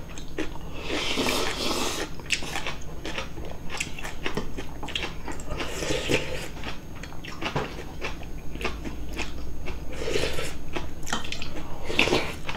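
Close-up eating sounds of two people having hot nurungji porridge and salted seafood side dishes: chewing, a few short slurps, and the small clicks of chopsticks and a spoon against bowls.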